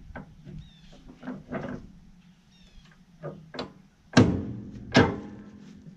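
Steel lever-type chain load binder on a trailer being worked loose: light chain clinks and rattles, then two loud metallic clanks about a second apart near the end, each ringing briefly. The binder is stiff and locked up.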